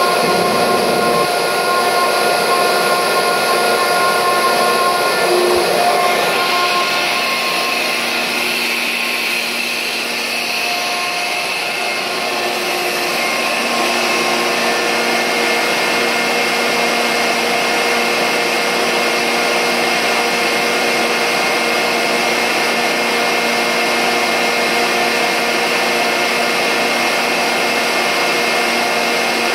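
Sullivan-Palatek 50 hp rotary screw air compressor running: a steady, loud whine and rush with several fixed tones. The tone shifts about six seconds in.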